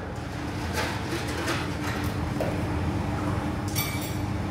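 Steady low kitchen hum, with a metal spoon clinking once against a stainless steel bowl near the end.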